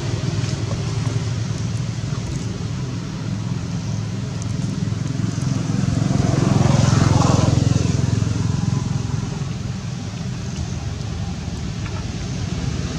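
A motor vehicle engine running steadily. It grows louder about halfway through, with a brief rise and fall in pitch as it passes, then fades back.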